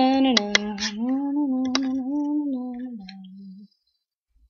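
A woman's voice singing a drawn-out wordless note, its pitch stepping up and down, trailing off about three and a half seconds in. A few sharp clicks sound over it.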